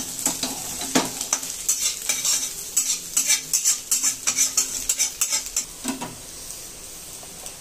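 A spatula scraping and clicking against a pan while stirring frying eggs and vegetables, with sizzling underneath. The stirring stops about six seconds in, leaving a quieter steady sizzle.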